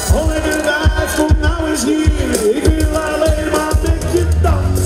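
Live pop music played over a PA at an open-air party, a bending lead melody over light accompaniment; the heavy bass and drums drop out at first and come back in near the end.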